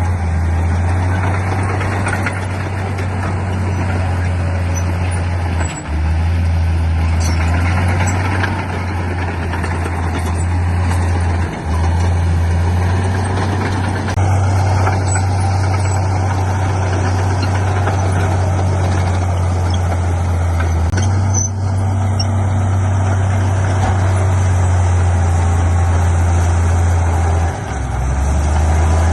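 Diesel engine of heavy earthmoving machinery running steadily under work, a loud low drone that dips briefly a few times.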